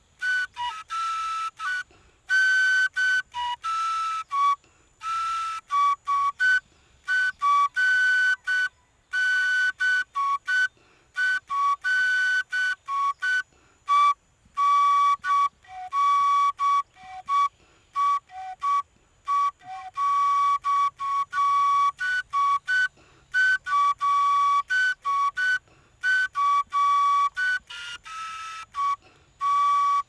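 Cane flute played solo: a tune of short, separate notes, mostly moving between two or three high pitches, with a few lower notes around the middle.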